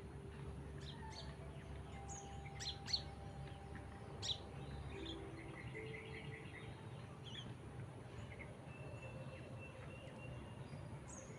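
Oriental magpie-robins calling: several sharp, high chirps in the first half, the loudest about three and four seconds in, then a quick run of notes and a short thin whistle.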